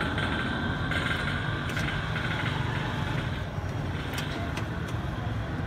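Steady low rumble of street traffic, with a few faint clicks.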